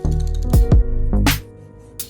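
Background music: a beat of deep kicks that drop in pitch and sharp snare-like hits over a held bass and melody.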